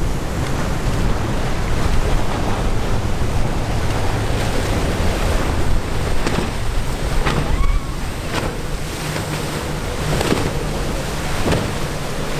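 Wind buffeting the microphone over the wash of waves breaking, with a deep rumble underneath and several short sharp knocks or slaps in the second half.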